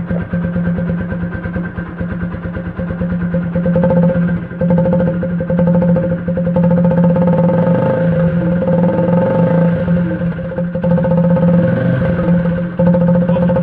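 Single-cylinder TVS Apache RTR motorcycle engine running, its exhaust blowing through a makeshift pipe extension held against the silencer outlet. It idles at first, then is revved repeatedly from about four seconds in.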